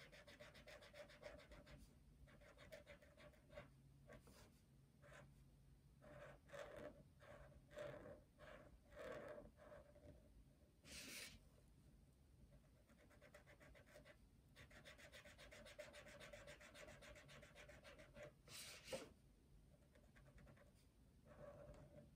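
Faint scratching of a brush-tip felt marker coloring on paper in quick back-and-forth strokes, with two brief louder rustles of the sheet, about halfway through and near the end.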